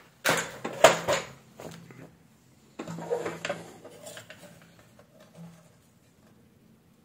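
Clicks and plastic clatter of a weighing scale's small circuit boards and housing being handled and lifted out, in two bursts: a louder one just after the start and a weaker one about three seconds in.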